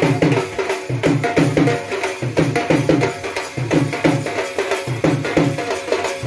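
Live wedding band playing dance music: a steady, driving drum beat with a melody on top.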